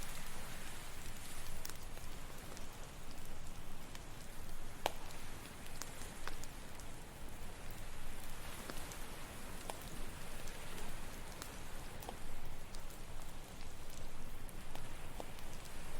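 Campfire crackling, with irregular sharp pops over a steady wash of ocean waves.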